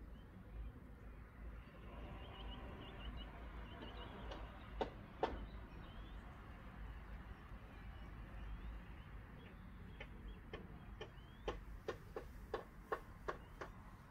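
Faint bird twittering over a low rumble, with two sharp clicks about five seconds in and a run of sharp clicks, about three a second, near the end.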